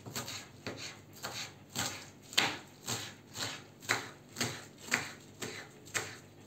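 Kitchen knife finely chopping black cabbage (kara lahana) leaves on a wooden cutting board: a steady run of knocks on the board, about two cuts a second.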